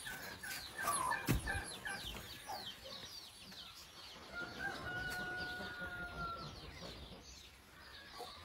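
Farmyard chickens clucking, with many short high chirps throughout. There is a single sharp knock about a second in, and one long drawn-out crow from a rooster in the middle.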